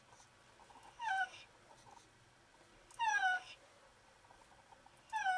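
A sick calico cat meowing three times, about two seconds apart; each meow is short and falls in pitch.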